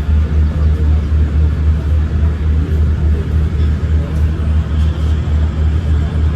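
Low engine rumble, pulsing evenly about six times a second.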